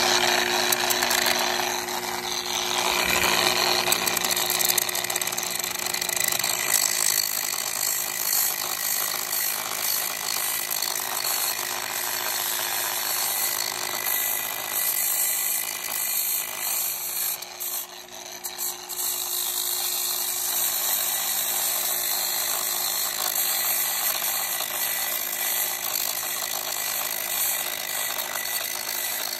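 Electric angle grinder running steadily with a zirconia flap disc, grinding hard white mineral crust off a zinc boat anode: a continuous motor whine over a rough grinding hiss. The level dips briefly about 18 seconds in, then the grinding carries on.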